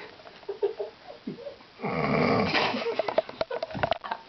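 A person snoring: one long, loud snore about two seconds in, with smaller scattered sounds before and after it.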